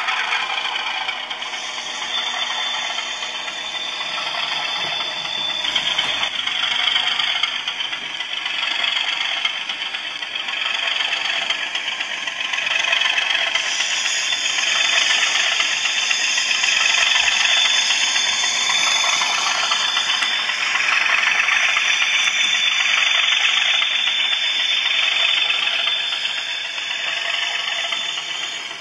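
Model Class 37 diesel locomotive with a DCC sound decoder, playing its engine sound through a small speaker over the rattle of the model's wheels and vans running on the track. It grows louder about halfway through as the train passes close, then eases off near the end.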